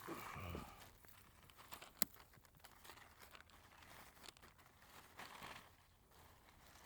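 Faint footsteps crunching and rustling through dry brush, with one sharp snap about two seconds in.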